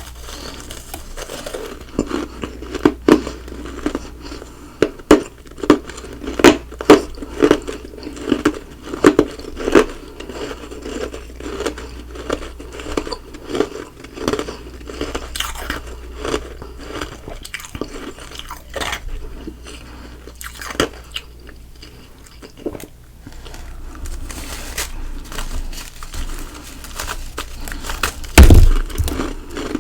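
Close-miked chewing of ice and frost: a steady run of sharp crunches as the ice is bitten and ground between the teeth, with a loud low thump near the end.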